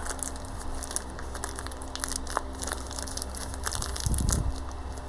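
Hands working on a motorcycle fork: irregular small clicks and crinkling handling noises as a new slider bush is fitted, with a louder low thump about four seconds in.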